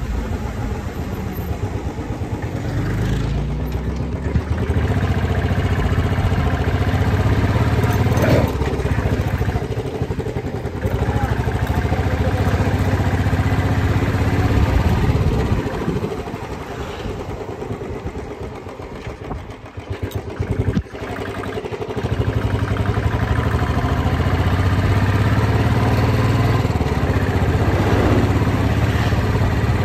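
Motorcycle engine running under way, heard from the rider's seat. It picks up with a rising pitch a few seconds in, eases off and quietens around the middle, then pulls steadily again for the last several seconds.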